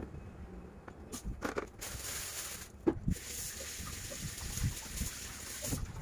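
Vegetables being handled and set into a clear plastic fridge bin: a few light knocks of produce against the plastic, over a steady hiss that starts about 2 seconds in and breaks off briefly near 3 seconds.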